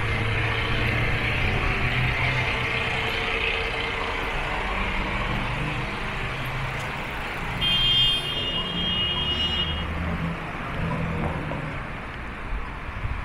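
Street traffic running past: vehicle engines and road noise. A high-pitched tone sounds for about two seconds from about eight seconds in.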